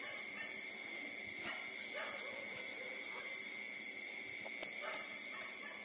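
Six-day-old puppies nursing, with soft suckling noises and a few faint squeaks, over a steady high-pitched whine.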